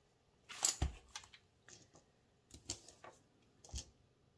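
Small dice clicking and knocking against each other and the tabletop as they are handled and counted: a short cluster of clicks a little under a second in, then a few single clicks.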